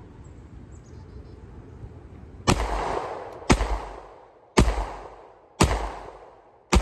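Glock 43X 9mm pistol fired five times at a steady pace, about one shot a second, starting about two and a half seconds in. Each shot is a sharp crack followed by a fading echo.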